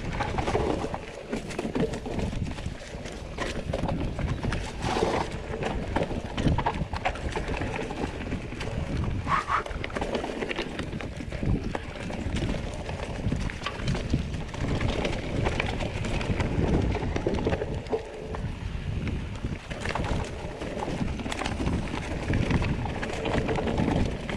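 Mountain bike riding down a rough trail: tyres on dirt and stones, with the bike rattling and knocking over bumps throughout.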